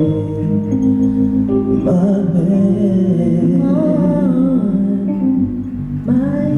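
Live R&B music: a singer's held, wordless vocal line over sustained chords.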